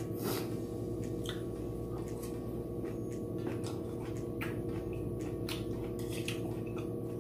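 Eating sounds of glass noodles: scattered short chopstick clicks and chewing noises, with a longer noisy slurp-like sound just after the start, over a steady background of sustained low tones.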